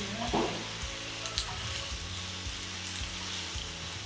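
Chicken wings sizzling in a thick gochujang glaze in a granite wok while being stirred and turned with two wooden spatulas, a steady frying hiss with a few light taps about a second and a half in. The sauce is being cooked down until almost dry and sticky on the chicken.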